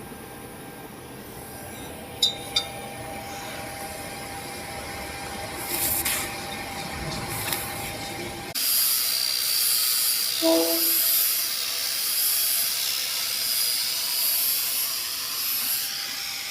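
A TIG welding arc strikes abruptly about halfway through and then hisses steadily and high-pitched, swelling about once a second. Before it there is a lower hum with a few clicks.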